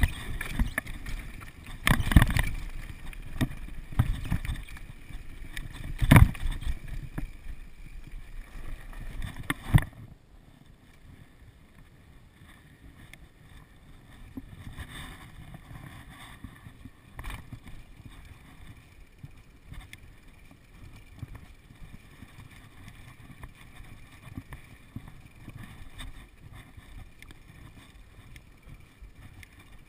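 Downhill mountain bike running over a rough dirt trail: wind on the microphone and the rattle of the bike, with sharp knocks over bumps about two, six and ten seconds in. After about ten seconds the sound drops abruptly to a quieter steady noise with occasional light clicks.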